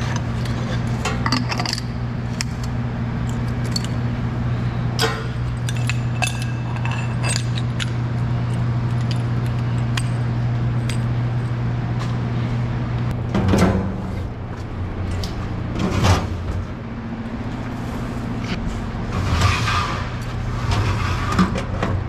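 Metal clinks, taps and clanks of tanker hose fittings being handled and uncoupled, over a steady low machine hum. There are louder clatters a little past halfway, again a few seconds later, and near the end.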